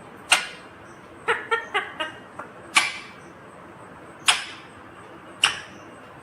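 Indian ringneck parakeet giving short, sharp calls: single loud calls about a third of a second in, near three seconds, past four seconds and past five seconds, with a quick run of four shorter notes between about one and a quarter and two seconds.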